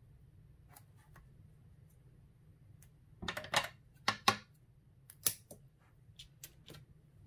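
Hands handling a strip of double-sided tape and peeling off its backing: scattered light clicks and crackles, the loudest a burst of crackling about three seconds in followed by two sharp snaps, and another snap about five seconds in.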